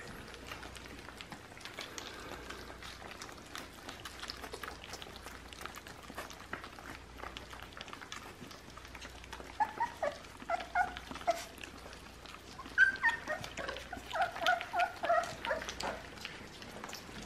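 Nearly four-week-old American bully puppies sucking and mouthing at a piece of raw chicken, with soft wet smacking and clicking. About ten seconds in, and again a few seconds later, several of them let out bursts of short high-pitched whimpering cries.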